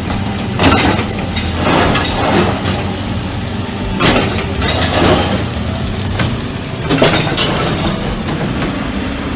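Excavator engine running steadily under about five loud crashes of breaking, crunching material, typical of demolition debris being broken and dropped.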